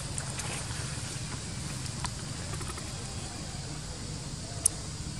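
Steady outdoor background hum with faint crackles of dry leaf litter as a baby macaque paws through it, and one sharp click near the end.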